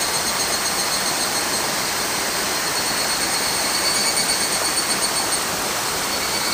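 Rushing water of a small rocky mountain stream, a steady even rush, with a thin steady high whine over it.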